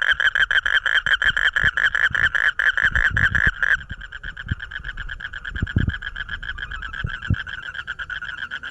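Frog calling at night: a fast, even trill of about ten pulses a second. The loudest caller stops abruptly about four seconds in, and a fainter one keeps trilling.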